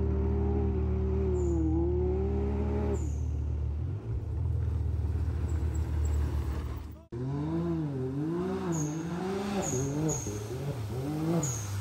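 Can-Am Maverick X3 side-by-side's turbocharged three-cylinder engine driving along a gravel road toward the listener. After a cut about seven seconds in, the engine is revved up and down repeatedly as the buggy runs through a muddy river crossing.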